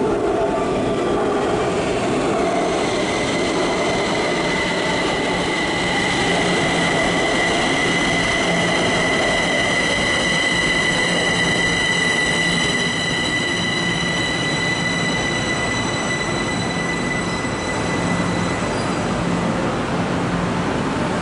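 Kaohsiung MRT Red Line electric train pulling in alongside the platform and slowing to a stop, with a motor whine that falls in pitch over the first few seconds. A steady high squeal from the wheels and brakes is loudest about halfway through, then eases as the train stands.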